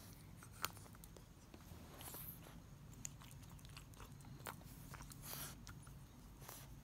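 French bulldog mouthing and chewing a cloth: faint scattered clicks and soft rustles, with one sharper click under a second in.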